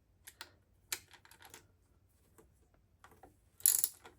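Light metal clicks and taps as a socket and ratchet are worked onto a bolt, then near the end a burst of ratchet wrench clicking as a bolt is turned.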